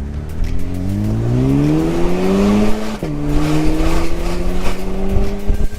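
Cadillac ATS turbocharged four-cylinder with a muffler-delete exhaust accelerating hard under full throttle, heard from inside the cabin with the windows down. Revs climb steadily, drop sharply at an upshift about three seconds in, then climb again.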